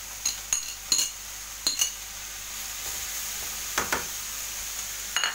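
Sliced mushrooms being scraped off a plate into a hot frying pan of turkey and onion. A utensil clinks sharply against the dish and pan several times, over a steady frying sizzle.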